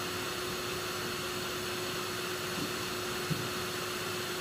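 Steady whirring hum of lab equipment cooling fans, with one steady low tone running through it. A brief faint click about three seconds in.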